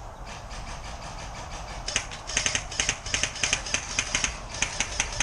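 Airsoft gunfire: from about two seconds in, a fast run of sharp cracks comes in short strings of several shots a second, over a steady low rumble.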